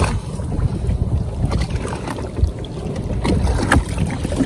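Wind rumbling on the microphone and water moving around a jet ski, with a few sharp knocks about a second and a half in and again near the end.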